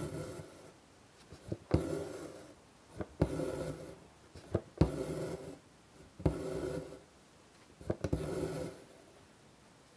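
Hand embroidery with white thread: the needle punches through taut fabric with a sharp tap, then the thread is drawn through with a rasping pull, about five stitches in a steady rhythm.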